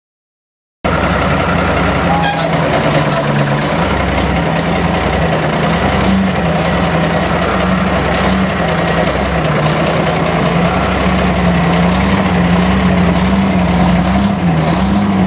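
Vintage truck engine idling, its pitch slowly wavering up and down. The sound cuts in just under a second in, after a brief silence.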